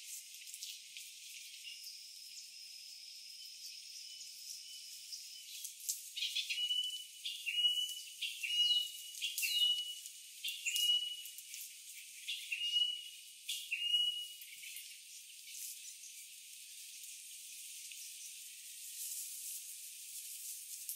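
Faint forest ambience with the low end cut away. A thin high whistle is held for about three seconds. Then a small animal repeats a call about eight times, a quick upward sweep into a short level note, over some nine seconds, with scattered small clicks.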